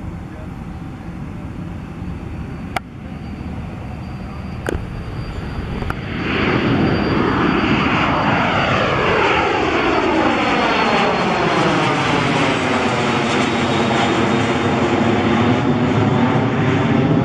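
Cessna Citation Encore business jet's twin turbofan engines at takeoff power. A steady distant roar, broken by a few sharp clicks, turns about six seconds in into a much louder jet roar with a faint high whine and a sweeping, phasing sound as the jet climbs out overhead.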